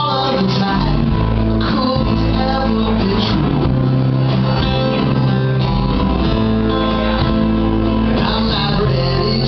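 Live band playing a rock song on strummed acoustic guitars and electric guitar, with low held notes underneath.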